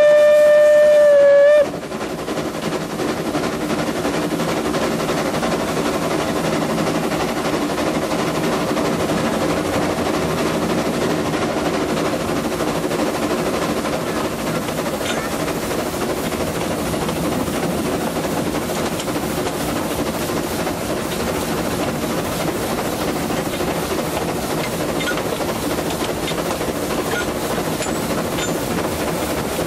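The steam whistle of an ÖBB class 298 narrow-gauge steam locomotive gives one steady blast of about a second and a half at the start. After it comes the even running noise of the train rolling along the track.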